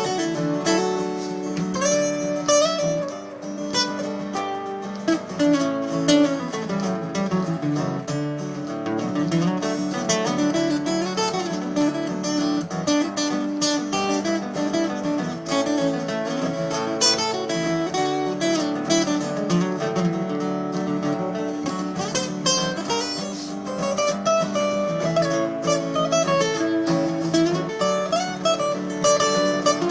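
Acoustic guitar playing an instrumental break in a country-folk song: a picked melody moving over strummed chords, with no singing.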